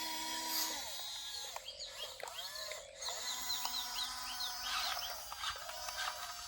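Birds chirping, with a quick run of short falling chirps in the middle.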